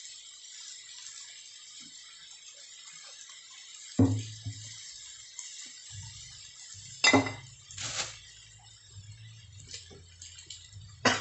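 Cookware and utensils clinking and knocking four times, about four, seven, eight and eleven seconds in, over a steady hiss from the wok of beef skin cooking on a gas stove.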